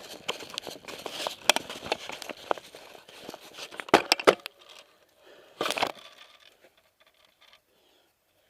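Dry leaves and brush crackling and rustling under someone moving through woods, with sharp snaps, the loudest two about four seconds in, then it goes nearly quiet after about six and a half seconds.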